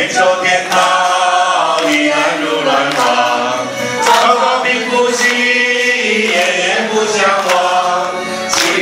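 A mixed group of men and women singing a Mandarin song together, some clapping along.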